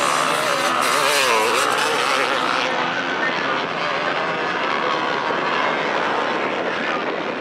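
Enduro motorcycle engines revving, the pitch wavering quickly up and down in the first two seconds, then settling into a steadier, dense engine noise.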